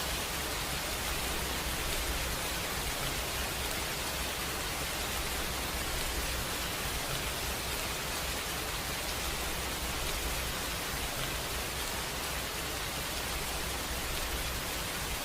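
Steady heavy rain falling, a dense, even hiss with no let-up and no separate thunderclap.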